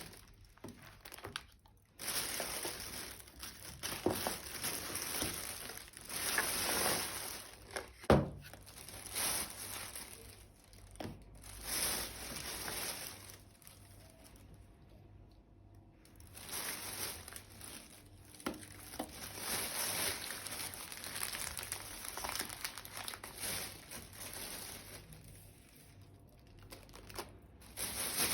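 Plastic packaging crinkling and rustling in bursts as it is handled, with a sharp knock about eight seconds in.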